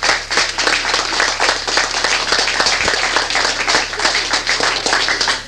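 Audience applauding, many hands clapping at once, over a steady low hum.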